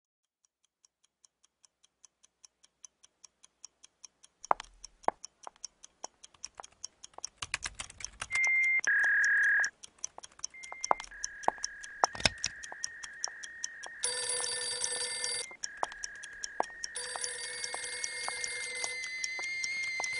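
A building sound-effects montage: clock-like ticking, about three ticks a second, grows steadily louder from near silence. About four seconds in, denser clicks join it, and from about eight seconds electronic telephone rings and beeping tones stack up over the ticking, getting busier and louder toward the end.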